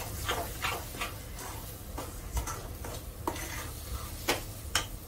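A spoon stirring and scraping a thick vegetable mash in a metal pot, over a low sizzle, with a few sharper knocks of the spoon against the pot in the second half.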